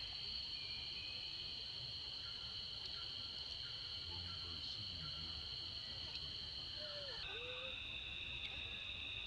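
Steady high-pitched drone of insects (crickets or cicadas), which shifts to a slightly lower pitch about seven seconds in, over a low rumble.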